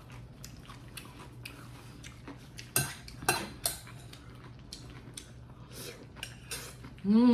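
Eating utensils clinking and scraping against bowls and dishes during a meal, with a few sharper clinks about three seconds in. Near the end a brief hummed "mmm" of enjoyment.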